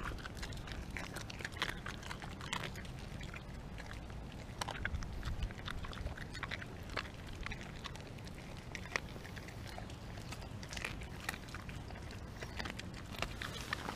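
A pit bull–husky mix dog chewing a raw chicken, with irregular crunches and wet chewing sounds.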